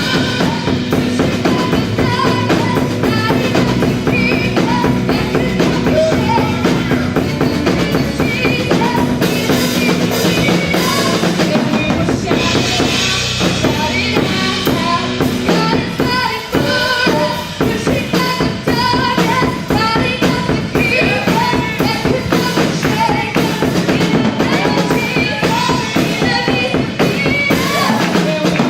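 Live gospel worship band playing an up-tempo groove: drum kit with bass drum and snare driving a steady beat under bass guitar and keyboard.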